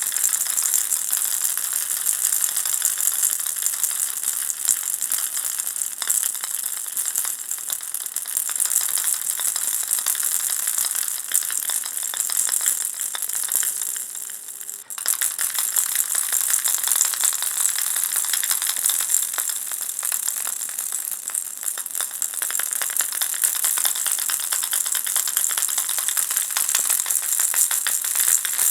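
Ball-shaped baby rattle being shaken continuously, giving a dense, shimmering rattle. It dips briefly about halfway through, then picks straight up again.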